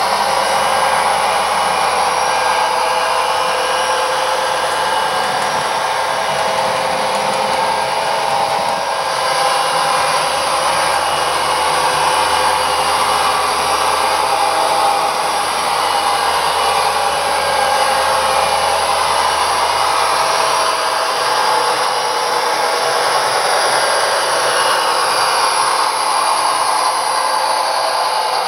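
Steady simulated EMD diesel engine sound from the SoundTraxx Econami decoders of two HO-scale Athearn SD40-2 model locomotives, played through small sugar-cube speakers as the models run. A low hum underneath stops about two-thirds of the way through.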